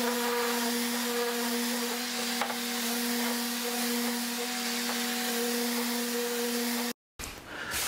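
Random orbital sander running steadily against the edge of a walnut tray frame, a constant motor hum with the hiss of sanding over it. It cuts off abruptly about seven seconds in.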